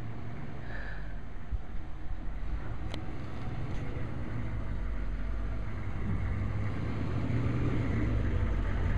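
Golf cart running and driving, a steady low engine hum that grows gradually louder as it approaches. A single sharp click sounds about three seconds in.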